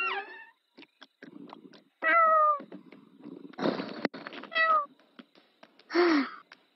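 Cartoon kitten meowing: a few short, high meows that fall in pitch. There is a short noisy burst ending in a click between them.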